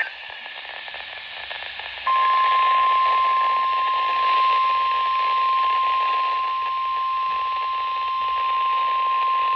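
NOAA Weather Radio broadcast: radio static hiss, then about two seconds in the single steady 1050 Hz warning alarm tone switches on and holds over the hiss. The tone is the alert that a warning, here a severe thunderstorm warning, is about to be read.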